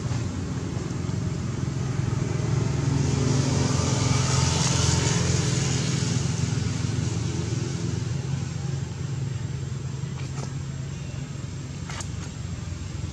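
A motor vehicle engine running steadily, swelling about four to five seconds in and then easing off, with a couple of faint clicks near the end.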